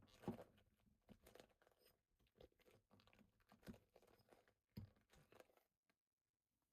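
Faint scattered rustling and clicking of a rubber RC crawler tire being worked by hand to seat the ring inside it.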